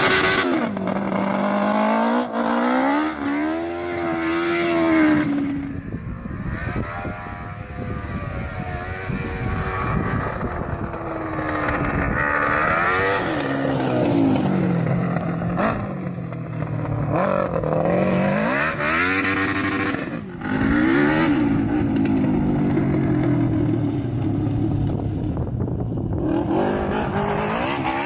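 A powerful vehicle engine revving hard, its pitch rising and falling again and again as the throttle is opened and eased off.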